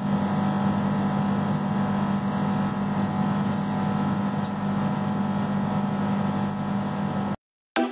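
Laser cutter running as it cuts acrylic sheet: a steady mechanical drone with a low hum, which cuts off suddenly near the end.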